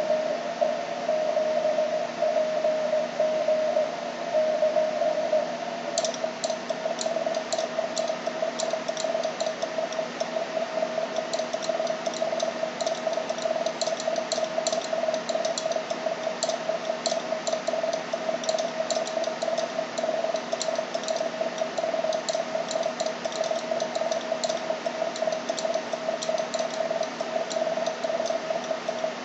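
Morse code (CW) on the 20-metre amateur band from a radio transceiver: a keyed, mid-pitched tone over steady band hiss. About six seconds in, the set goes to transmit, and the tone from then on is the operator's own keyed sending, with rapid sharp clicks along with it.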